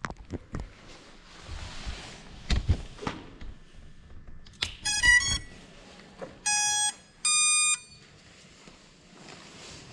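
GEPRC FPV quadcopter's motors beeping the ESC power-up tones of a freshly connected battery: a quick run of short rising beeps about five seconds in, then two longer beeps, a lower one and a higher one. Before that come a few handling knocks.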